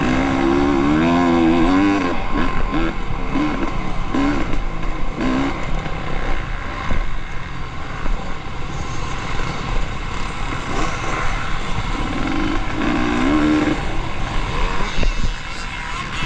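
Off-road racing motorcycles running at full throttle and backing off, their engines revving up and down. One bike is loudest near the start and another about twelve seconds in.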